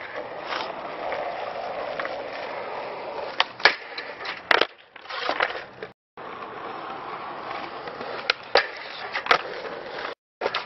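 Skateboard wheels rolling on rough asphalt, broken by sharp clacks of the board's tail popping and wheels slapping down, in two clusters of a few hits each. The sound drops out briefly twice where the footage is cut.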